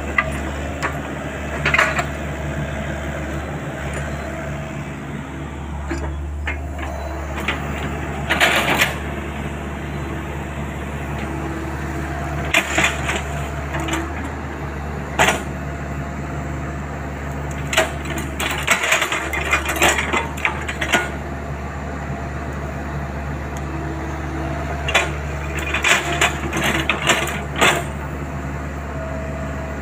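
XCMG compact excavator's diesel engine running steadily under working load, with scattered sharp cracks and knocks as the bucket digs through roots and woody debris, several coming in quick runs around the middle and near the end.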